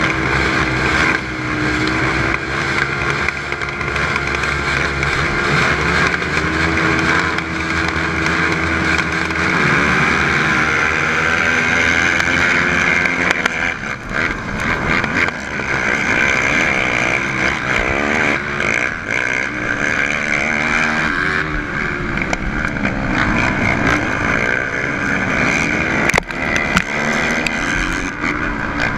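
450-class four-stroke racing quad engine heard on board: it holds a steady rev at the start line, then about ten seconds in revs hard and climbs up through the gears, pitch rising and dropping with each shift, among the engines of the other quads in the pack.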